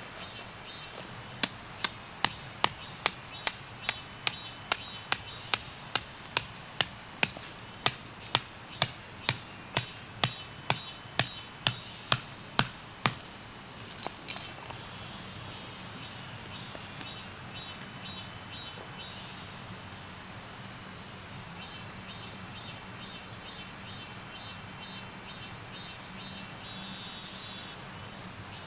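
Hammer driving a metal tent peg: about two dozen sharp strikes, roughly two a second, each with a short bright metallic ring, stopping about halfway through. Insects chirp in short pulses afterwards.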